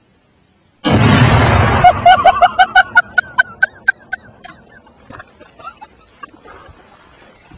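A .308 rifle shot setting off an explosive charge in a pumpkin target: one sudden, very loud blast about a second in. It is followed by a quick run of sharp ticks that thin out over the next few seconds.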